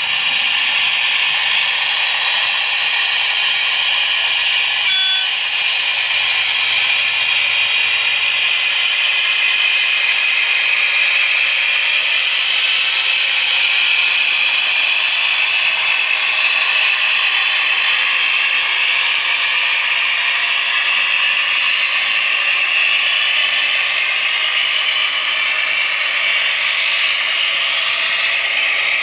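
H0 model trains running on the layout: a steady mechanical rattle and whir of wheels on track and gear drives, with no change in pace.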